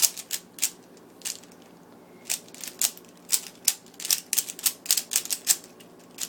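A Rubik's cube being turned fast in speedsolving: its plastic layers snap round with sharp, irregular clicks, sparse at first and then coming in quick runs of several a second.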